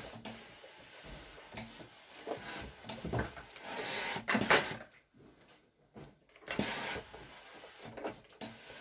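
Ironing a shirt with a steam iron: the iron slides and rubs over the cloth, with repeated knocks and clatter as it is lifted and set back down on the wooden table.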